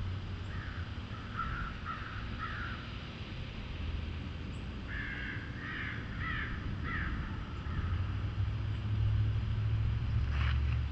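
A crow cawing in two runs of about four caws each, a couple of seconds apart, over a steady low rumble that grows louder toward the end.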